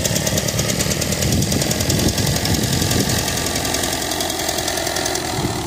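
Vintage Ford N-series tractor's four-cylinder flathead engine running steadily, with a rapid, even putter.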